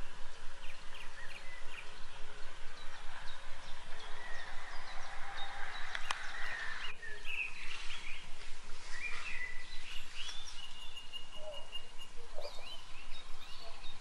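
Several wild birds singing, with short chirps, quick trills and one longer whistled note about ten seconds in, over a steady background hiss.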